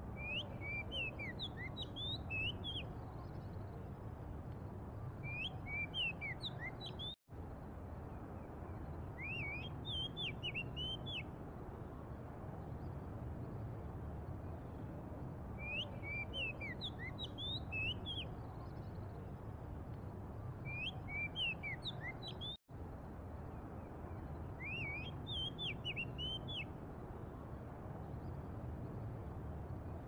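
Oriental magpie-robin singing: short phrases of clear whistled notes that glide up and down, repeated every four to six seconds over a steady low rumble. The sound cuts out for an instant twice.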